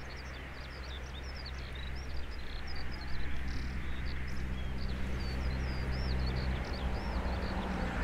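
Ambient field recording of open pasture: small birds singing in quick high chirps and whistles over a steady low drone. A road vehicle's noise grows slowly louder as it approaches.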